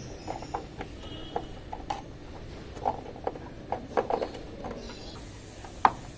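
Scattered plastic clicks, taps and rubbing as the Honda City's tail lamp cluster is handled and pressed back into place on the body, with one louder sharp click near the end.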